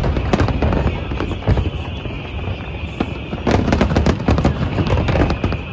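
Fireworks shells bursting in rapid volleys of sharp bangs and crackles, with a dense barrage about two-thirds of the way through.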